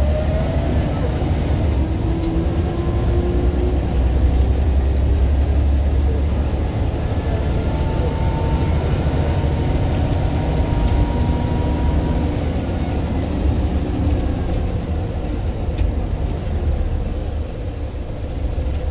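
Scania single-deck bus with a ZF automatic gearbox running under way: a deep engine drone with the ZF gearbox whine over it, rising in pitch in the first second, then settling into steadier whines.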